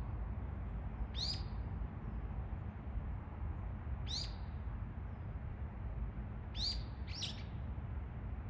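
A bird calling four times with short, high, sharp notes, the last two close together near the end, over a steady low outdoor rumble.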